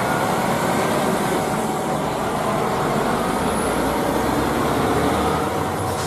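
Concrete mixer truck driving by, its diesel engine running steadily with a low rumble and street noise.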